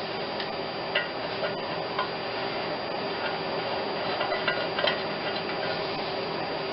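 Scattered light metallic clicks and ticks of small parts being handled, over a steady background hum, with a short cluster of clicks a little past the middle.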